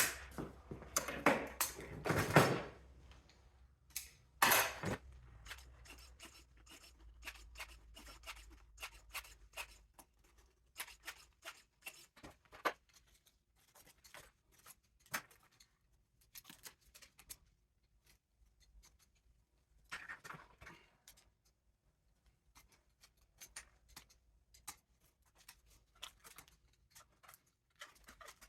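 Hand dismantling of a mini-split air conditioner for scrap: a clatter of parts in the first couple of seconds and again about four seconds in, then a long run of scattered sharp clicks and snips, with a brief scraping sound about twenty seconds in.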